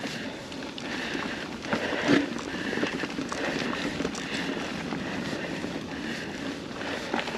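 A mountain bike rolling along a dirt singletrack strewn with dry leaves: a steady rush of tyre and trail noise, with a louder rattle of the bike over a bump about two seconds in and a few lighter knocks.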